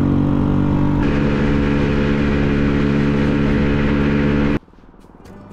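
Honda Ruckus's 49cc four-stroke single-cylinder engine running steadily as the scooter cruises along. The sound cuts off suddenly about four and a half seconds in, leaving a much quieter sound that slowly grows louder.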